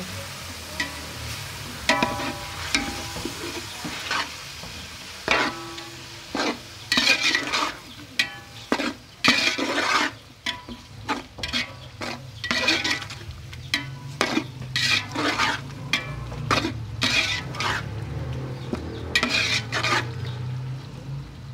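Metal spatula stirring and scraping chopped tomatoes and onions frying in oil in a metal pot: irregular scrapes and knocks against the pot over a steady sizzle.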